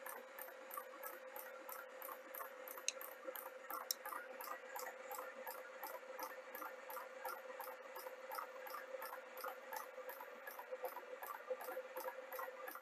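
Reciprocating saw (Sawzall) running a test rig, cycling a 12-gauge shell in and out of a shotgun cartridge adapter and tripping a mechanical stroke counter on each cycle. It gives steady rhythmic clicking of about four strokes a second over a steady motor hum.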